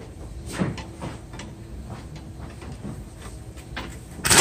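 Light scattered clicks and knocks of tools and parts being handled at the wheel hub, then near the end a pneumatic impact wrench starts suddenly with loud, rapid hammering on the 19 mm CV axle nut.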